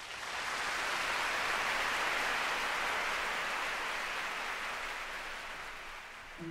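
Audience applauding, swelling in the first second and slowly dying away.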